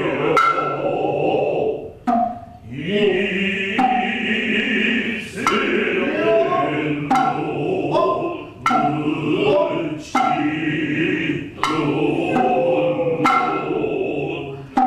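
Noh chorus (jiutai) chanting in unison, punctuated about every second and a half by sharp strokes of the kotsuzumi and ōtsuzumi hand drums.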